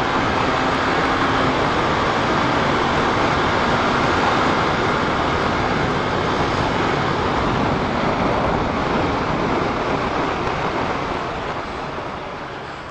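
Wind rushing over the microphone of a Yamaha R3 motorcycle riding at speed, with the steady note of its 321 cc parallel-twin engine underneath. The rush eases off near the end as the bike slows.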